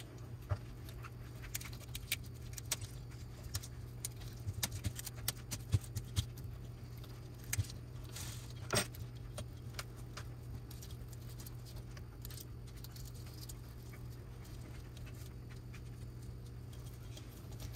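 Plastic cable drag chain links clicking and rattling as they are handled and opened by hand, a scatter of light clicks, most of them in the first half. A steady low hum runs underneath.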